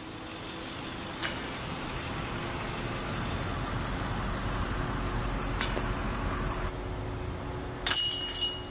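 Passing road traffic, a steady noise that swells through the middle and drops off about two-thirds of the way in, with a couple of faint clicks and a brief loud clatter near the end.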